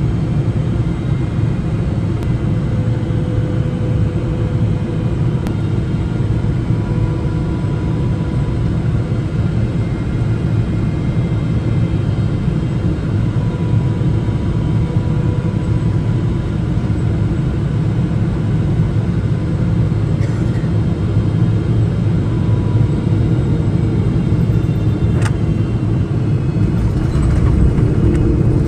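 Steady low rumble of airliner cabin noise aboard a Boeing 777-300 on approach, from its engines and the air rushing past the fuselage. A single sharp click sounds near the end, and the rumble grows slightly louder over the last couple of seconds.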